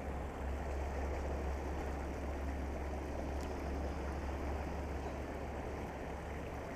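Steady rush of water spilling over a small concrete weir, with a low steady rumble underneath.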